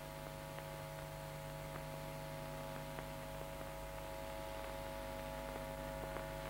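Steady electrical hum with a few faint scattered clicks: the background noise of an old film soundtrack.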